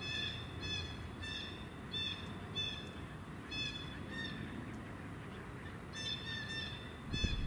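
A bird calling: a series of short, nasal notes repeated every half second or so, pausing for a couple of seconds partway through and then starting again.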